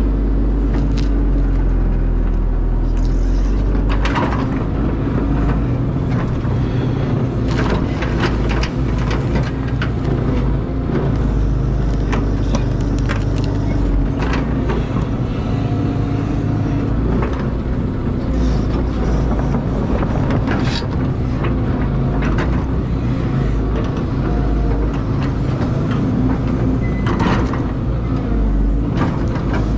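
Caterpillar excavator's diesel engine running steadily, with repeated knocks and clanks scattered throughout as the machine works.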